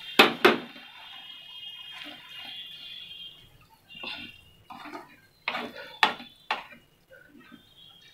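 Wooden spatula stirring a thick moong dal curry in a non-stick frying pan, with short knocks and scrapes against the pan, clustered from about four seconds in. Two sharp clinks against the pan come just after the start and are the loudest sounds.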